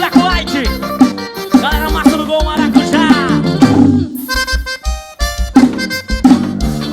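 Forró music with a bending lead melody over a regular kick drum. About four seconds in, the drums drop back for a short break of held chords, then the beat returns.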